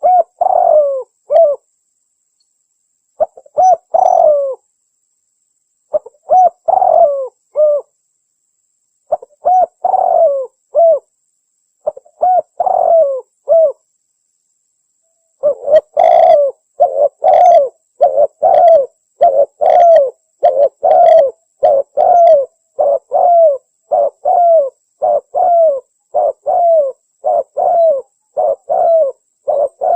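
Spotted dove (tekukur) cooing, a recorded lure call. Separate coo phrases come every few seconds at first, then about halfway through they turn into a fast, almost unbroken run of coos.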